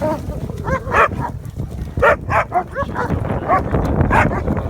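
A dog 'talking': a run of short, high yips and whines in quick succession, each call rising and falling in pitch.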